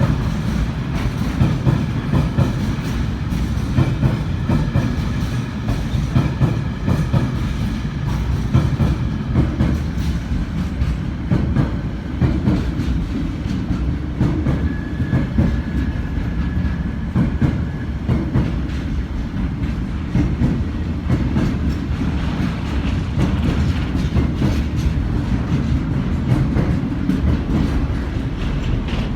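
Engineers' train wagons behind a DB Class 66 diesel locomotive rolling past at steady speed. The wheels clatter continuously over the rail joints with a constant low rumble.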